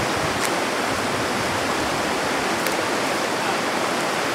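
Steady rushing of a creek, with a couple of faint clicks as gravel is scooped by hand into a plastic gold pan.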